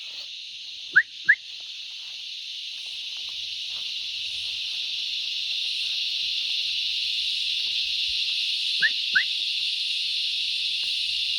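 A steady high-pitched drone of insects in the bush, slowly growing louder. Twice, about a second in and again near nine seconds, a quick pair of short rising whistles cuts through.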